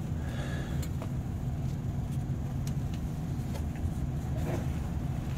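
A steady low engine hum, like a vehicle idling, with a few faint light clicks over it.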